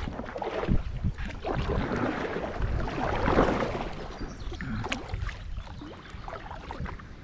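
Water splashing and sloshing around a small boat, with wind rumbling on the microphone.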